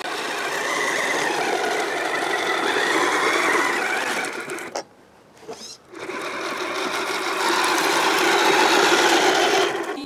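Electric motor and gearbox of a Kyosho Blizzard SR radio-controlled snowcat whining as it drives its tracks and plow through snow, the pitch rising and falling with the throttle. The sound drops away for about a second halfway through, then comes back.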